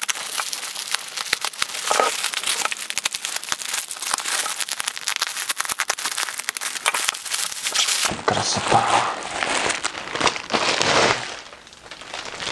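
Black plastic parcel wrapping crinkling and crackling as it is slit with a utility knife and pulled open. It turns to softer rustling, dropping off in the last second.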